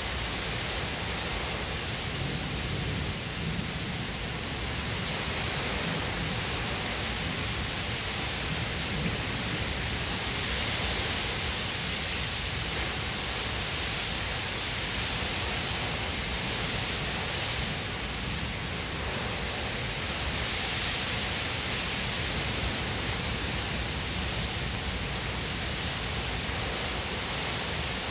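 Heavy rain pouring down in a storm, a steady hiss that swells louder now and then.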